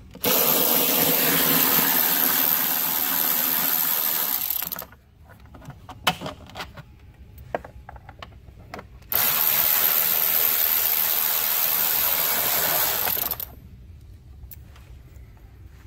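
Cordless electric ratchet running in two long bursts of about four seconds each, backing out the 10 mm nut and 10 mm bolt that hold the engine cover on a 2.7L EcoBoost V6. Between and after the bursts come small clicks and knocks of the tool and fasteners being handled.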